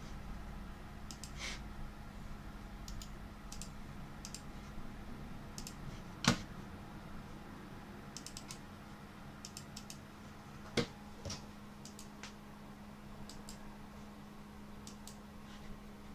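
Computer mouse clicking, scattered single and quick double clicks, with two louder knocks about six and eleven seconds in. A steady low hum runs underneath.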